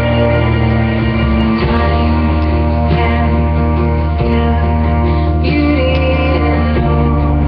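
Music: a pop ballad accompaniment with a singing voice over sustained low bass notes.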